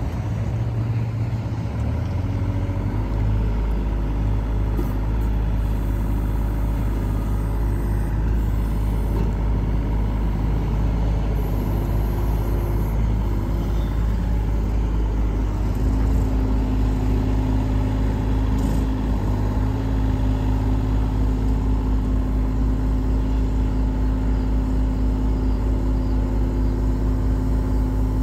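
Diesel engine of a John Deere 35 P-Tier compact excavator running steadily while the hydraulics work the boom and swing the upper structure. The engine comes up in the first few seconds, and a steady higher hum joins about halfway through.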